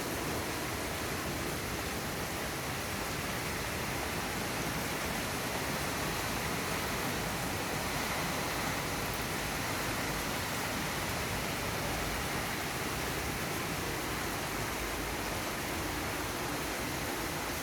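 Monsoon rain falling steadily, an even, unbroken hiss.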